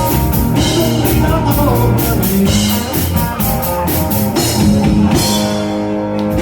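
Live rock band playing, with drum kit and guitar. About five seconds in the drums drop out and a held chord rings on.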